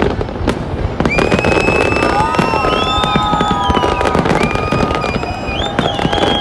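Large aerial fireworks display: a dense barrage of shell bursts crackling and popping continuously. From about a second in, several long high whistles at different pitches, some bending up or down, sound over the crackle.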